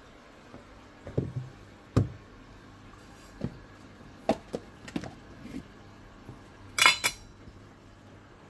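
Irregular clinks and knocks of small hard objects, the loudest a short clatter about seven seconds in, over a faint steady hum.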